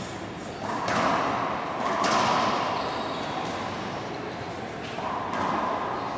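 Racquetball being struck by racquets and smacking off the court walls during a rally: a few sharp hits, the loudest about one and two seconds in and another about five seconds in, each ringing with a long echo in the enclosed court.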